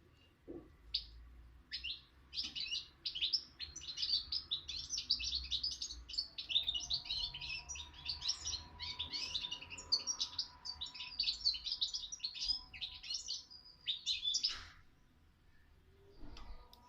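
A young cage songbird, raised hearing only its parents' song, sings a long, fast, unbroken stream of high twittering notes and trills, stopping a couple of seconds before the end.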